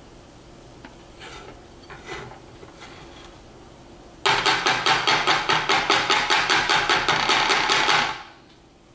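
Silicone spatula knocking rapidly against the rim of a glass mixing bowl of cornbread batter, a fast, even clatter of about seven strokes a second that starts suddenly around halfway through and stops near the end. Before it come a few soft scrapes in the bowl.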